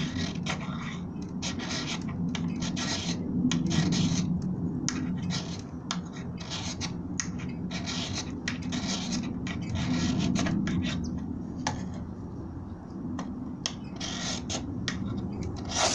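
Ferrocerium rod scraped with a striker to throw sparks onto fatwood shavings: repeated rasping strokes, about two a second, with a few pauses.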